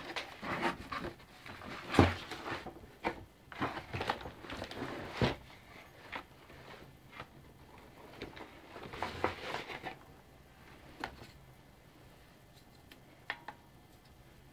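Handling of a cardboard motherboard box and its contents: rustling, scraping and knocks of cardboard, with a sharp knock about two seconds in. It goes much quieter about ten seconds in, leaving a few light clicks.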